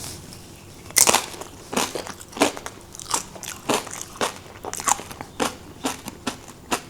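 A bite into a crisp water cracker spread with whipped goat cheese and hot honey: one loud crunch about a second in, then steady crunchy chewing, roughly one or two chews a second.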